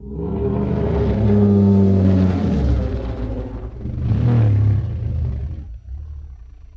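Designed kaiju roar sound effect in the style of Godzilla: a deep roar that starts suddenly, swells twice and fades out.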